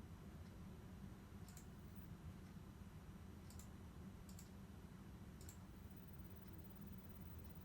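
Near silence: a low steady hum with four faint, sharp clicks at uneven intervals.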